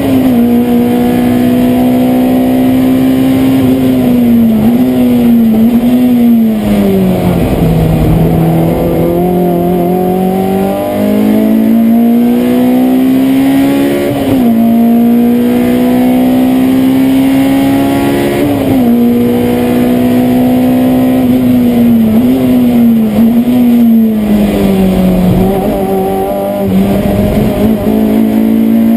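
Honda S2000 race car's four-cylinder engine heard from inside the cockpit on a fast lap. It holds a steady pitch on the straights, falls in steps with short blips twice as the car brakes and downshifts for corners, then climbs again under full throttle with sudden drops at the upshifts.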